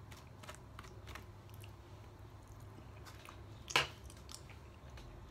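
Faint chewing and mouth sounds of a person eating chicken strips, with scattered small clicks and one sharper click a little under four seconds in.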